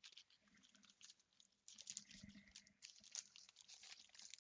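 Faint crinkling and rustling of a clear plastic zip-top bag handled by hands: irregular small crackles.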